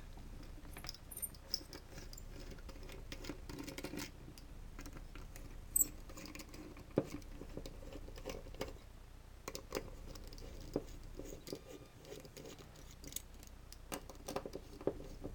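Small screwdriver undoing the corner screws of an LED floodlight's front frame: faint scratching and small clicks as the blade works in the screw heads, with a few sharper ticks about six and seven seconds in and again near the end.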